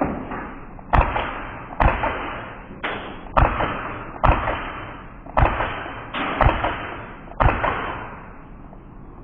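E&C Glock 17 gas blowback airsoft pistol firing single shots at an uneven pace, about one a second, eight in all. Each shot is a sharp crack followed by a hiss that fades over about half a second.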